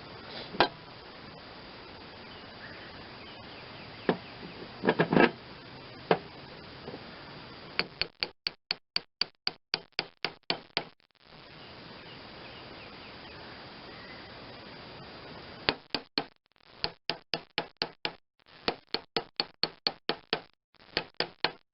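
Hammer tapping a new pulley down onto a mower-deck spindle shaft to seat it. A few single knocks come first, then two long runs of quick, even taps at about four a second.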